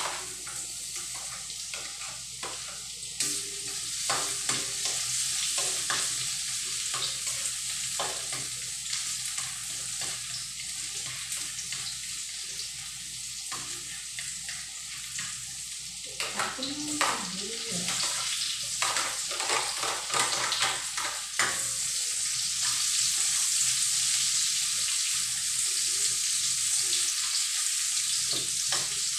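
Chopped garlic sizzling in hot oil in a wok on a gas burner, with a ladle scraping and clacking against the pan as it is stirred. About three-quarters of the way through the sizzle grows louder and steadier, with chopped onion now frying alongside the garlic.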